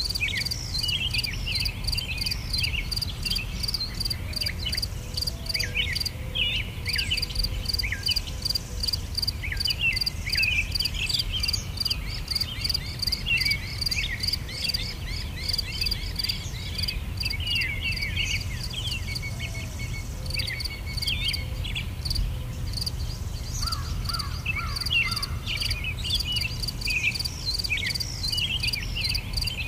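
Outdoor field ambience: an insect chorus, crickets or similar, chirping in a steady rapid pulse several times a second, with many short, downward-sweeping bird chirps over it. A low steady rumble runs underneath.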